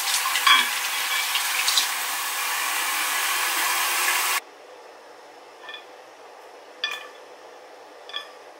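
Kitchen faucet running as water fills an insulated steel water bottle, shutting off abruptly about four seconds in. A few light clicks follow as the bottle and its straw lid are handled.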